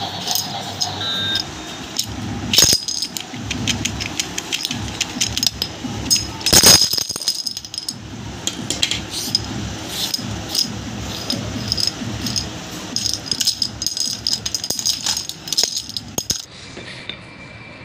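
Plastic toy dominoes clattering and clicking against each other and the hard floor as they are gathered by hand and stacked into a toy domino train. There are louder clacks about two and a half seconds in and again around seven seconds.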